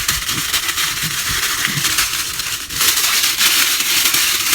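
Aluminium foil crinkling and crackling as it is folded and wrapped around an ear of corn.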